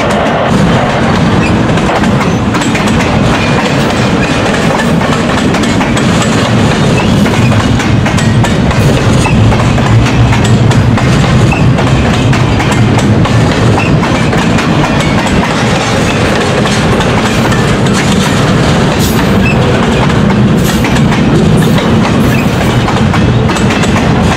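CN Q101 intermodal freight train's double-stack container cars rolling past at a level crossing: a steady, loud rumble with the click and clatter of wheels on the rails throughout.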